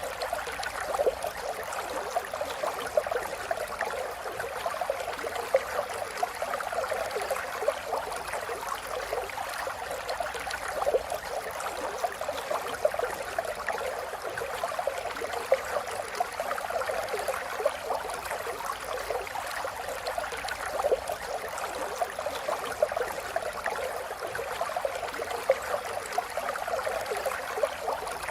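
River water flowing and babbling continuously, with dense small splashes and gurgles.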